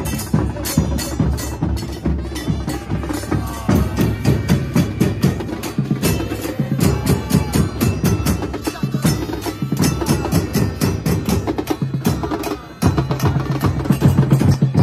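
A football supporters' band beating bass drums (bombos) in a fast, driving rhythm, many strokes a second, with the crowd's voices over it.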